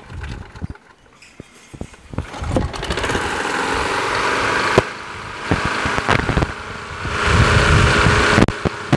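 A Craftsman push mower's small four-stroke engine running after a cold-weather restart. Its speed rises and falls: quieter for the first couple of seconds, louder from about two and a half seconds in, dipping, then loudest near the end. It is running a little fast, with the RPM a little high.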